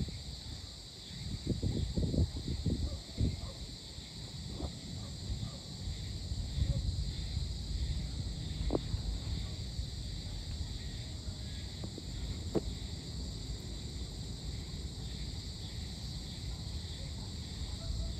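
Evening insect chorus, with crickets trilling steadily at several high pitches, over a low rumble. Two short clicks cut in, about nine and twelve seconds in.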